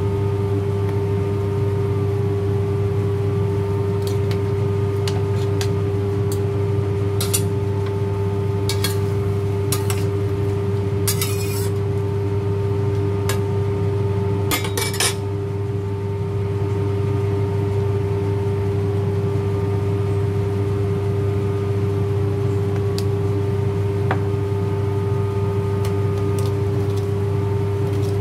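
Metal spoon and spatula clinking and scraping against a stainless steel wok while prawns are stirred, in scattered strokes with a longer stretch of stirring about halfway through. Under it runs a steady loud mechanical hum.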